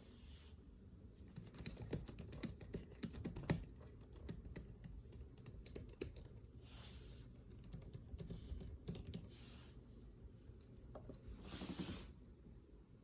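Typing on a Logitech Craft wireless keyboard's low-profile keys: a fast run of key clicks in the first few seconds, then slower, scattered keystrokes and another quick burst about two-thirds of the way through. A short brushing sound comes near the end.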